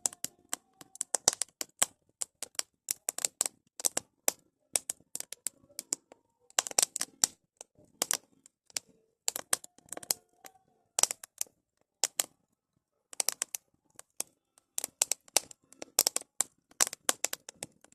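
Burning firewood crackling, with irregular sharp pops and snaps coming in clusters and a few brief lulls.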